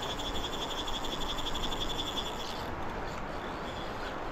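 Fly reel's click-pawl drag ratcheting in a fast, even run of clicks while a rainbow trout is on the line; the clicking stops a little over halfway through, with a few faint clicks after. A steady rush of river water lies underneath.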